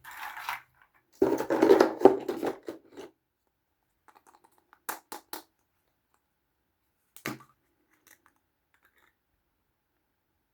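Plastic toy packaging being handled: about two seconds of rustling and tearing, then three quick sharp clicks and one more click a couple of seconds later.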